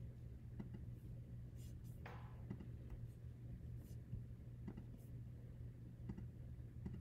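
About half a dozen scattered clicks of a computer mouse or trackpad button as menus are opened, over a steady low hum, with a brief rustle about two seconds in.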